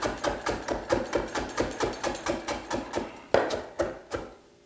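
Knife slicing fresh ginger across the grain on a wooden cutting board: quick, even chopping strokes, about five a second, then a few slower, louder cuts before it stops near the end.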